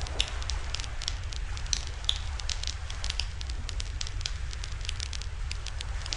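Wood campfire crackling, with many small, irregular pops throughout, over a steady low rumble.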